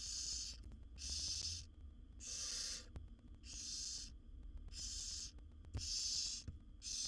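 Barn owl nestlings' food-begging calls: a run of rasping hisses, each about half a second long, repeating about once a second.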